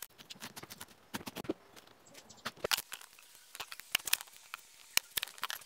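A knife cutting down through a whole watermelon: the rind cracks and the melon splits open, heard as a run of sharp, irregular clicks and cracks.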